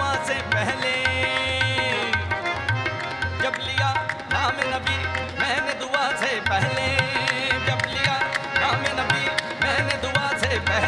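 Live qawwali: two harmoniums and a tabla accompany a lead singer's ornamented vocal line, with the chorus clapping in time.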